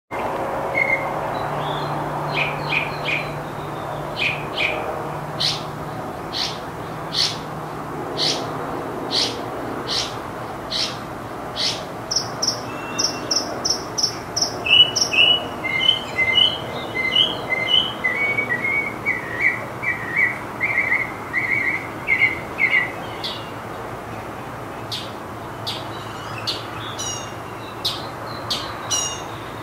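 Northern mockingbird singing, repeating each phrase several times before switching to the next. It starts with sharp calls about one a second, moves to fast runs of high chirps and trills in the middle, and returns to sharp calls near the end.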